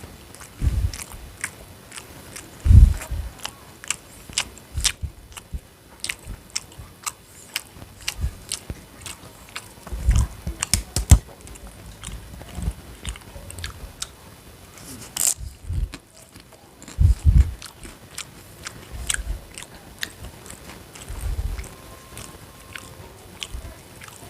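Close-miked eating: a person biting and chewing food, with many short crisp clicks and a few loud low thumps.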